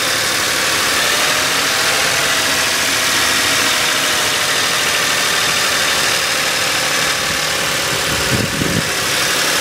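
2008 Ford Edge's 3.5-litre V6 engine running steadily at about 1500 rpm, heard close up in the open engine bay.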